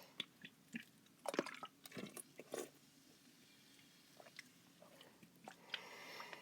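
Faint mouth sounds of someone sipping and swallowing sparkling water: scattered small clicks and smacks, with a short soft hiss near the end.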